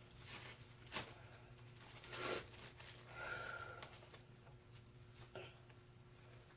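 Faint handling of packaging: a few rustles, crinkles and tearing sounds with a sharp click about a second in, as an item is worked out of its wrapping.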